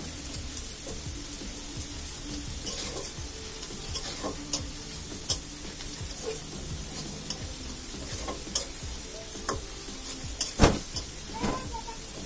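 Chopped garlic sizzling in hot oil in a karai, with a metal spatula scraping and tapping against the pan as it is stirred. Light clicks come every second or so, and the loudest knock comes near the end.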